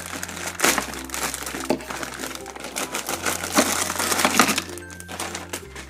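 Clear plastic packaging bag crinkling and crackling irregularly as it is handled and opened around a set of plastic bubble wands.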